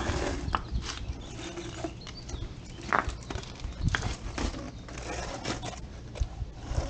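Scattered clicks, taps and rustles of handling: voltage regulators and their corrugated plastic wire loom being picked up, moved and set down on a concrete floor.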